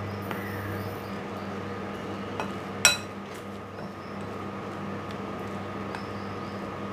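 Metal spoon clinking against a glass mixing bowl while stirring crumbly rice-flour dough: a few light clinks and one sharp ringing clink about three seconds in.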